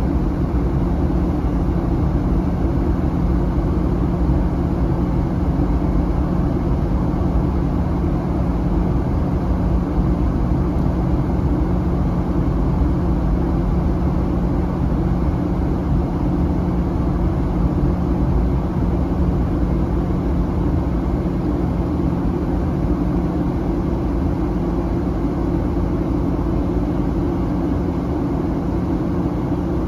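Steady cabin drone inside a Boeing 737-900 airliner during its descent: the twin CFM56 turbofan engines and the airflow around the fuselage, heard through the cabin wall as an even rushing noise with a low, steady hum.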